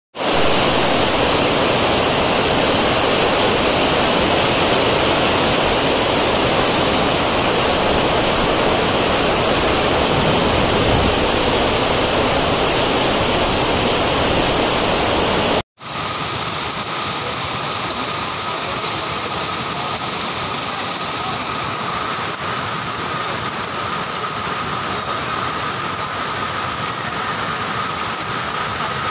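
Steady roar of heavy rain and rushing floodwater. About halfway through it cuts off abruptly and gives way to a slightly quieter steady rush of muddy water cascading down a hillside, with a faint steady tone under it.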